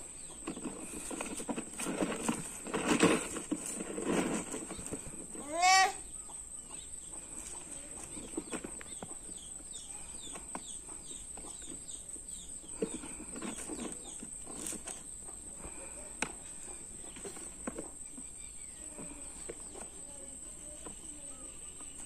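Rural yard ambience: a steady high insect drone, with one short, loud rising call from a farm animal about six seconds in.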